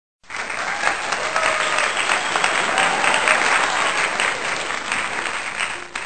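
A crowd applauding, many hands clapping densely together, tailing off near the end.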